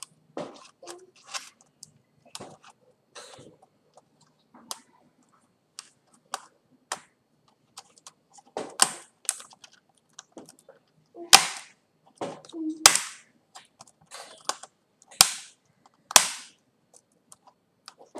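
Lenovo IdeaPad S410P laptop keyboard being pressed down into its palmrest: a string of small clicks, then several loud sharp snaps in the second half as it is pushed into place.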